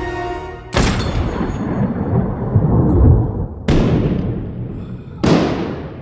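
Three pistol shots, the first about a second in, the second near four seconds and the third just past five, each followed by a long booming echo that dies away. A music score is heard just before the first shot and cuts off at it.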